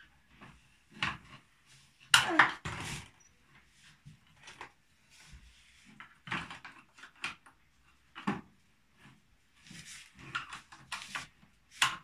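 Plastic toy house pieces and small toy figures clicking and knocking against each other and a wooden tabletop as they are handled. The knocks are scattered, with the loudest cluster about two seconds in.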